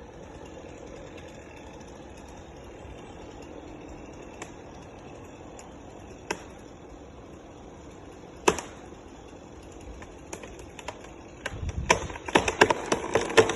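Truck engine idling steadily, with a few sharp clicks, then a dense, growing clatter of clicks and rattles near the end.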